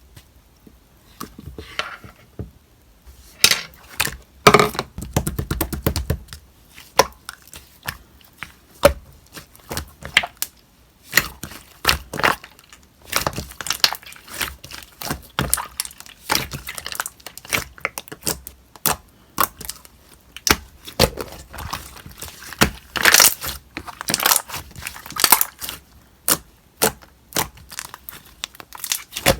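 Slime being squished and stretched by hand, giving irregular sharp clicking pops and crackles.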